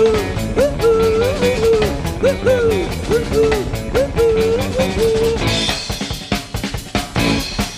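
Background music: a band track with a steady drum beat and a bending lead melody that drops out about five seconds in, leaving the drums to carry on.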